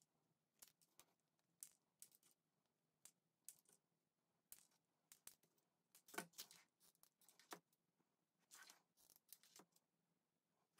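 Scissors snipping apart a strip of small rhinestone trim: a run of faint, irregular snips and clicks.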